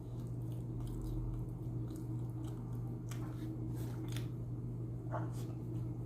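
A person chewing and biting a chicken shawarma wrap close to the microphone: scattered wet, squishy mouth sounds and small crunches. A steady low hum runs underneath.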